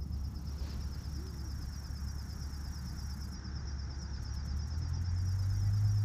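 Outdoor lakeside ambience: a low steady rumble that grows louder about five seconds in, with a faint high insect trill throughout.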